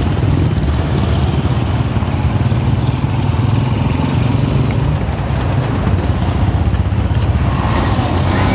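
Steady rumble of street traffic, with motor-tricycle engines running close by, heard from a bicycle riding among them.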